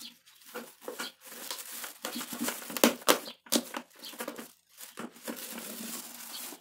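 A plastic bag rustling and crinkling as a plastic dustpan digs into it and scoops out powdered lime, with a couple of sharper scrapes near the middle.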